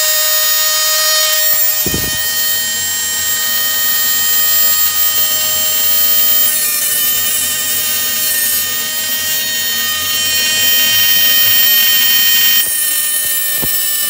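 Small corded rotary tool with a cut-off disc spinning at high speed, a steady high-pitched whine. A harsher grinding hiss comes in briefly around six to eight seconds in and again near the end, as the disc cuts into a steel link of the old double-row timing chain, splitting it.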